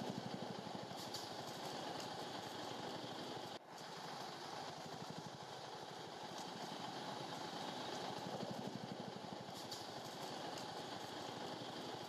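A faint engine idling steadily, with a fine even pulsing. The sound drops out sharply for a moment about three and a half seconds in.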